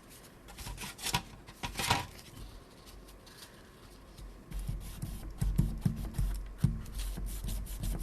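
Paper towel wet with isopropyl alcohol being rubbed against the camera body to clear old light-seal foam residue. Two scratchy wipes come about one and two seconds in, then a quicker run of rubbing strokes with a few small knocks in the second half.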